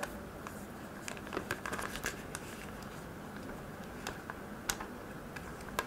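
Thin plastic protective film being peeled off a smartphone screen and handled, with scattered soft crinkles and small crackles.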